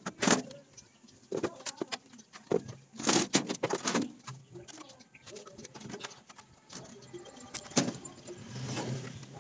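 Hollow plastic casing knocking and scraping as it is lifted and set down against a plywood board and metal workbench: a string of sharp knocks, in clusters about three seconds in and near the end.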